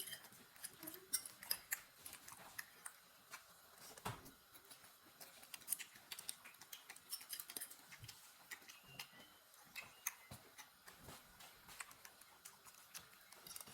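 Close-miked eating of spaghetti: quiet, irregular small clicks and smacks of chewing and a fork on the plate, with a duller knock about four seconds in.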